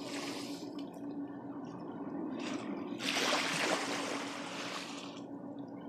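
River water rushing and trickling steadily, with a faint steady hum underneath. The noise swells louder and brighter for about two seconds in the middle.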